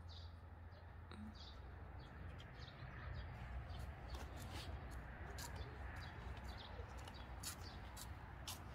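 Small birds chirping in short, scattered high notes over a faint low rumble.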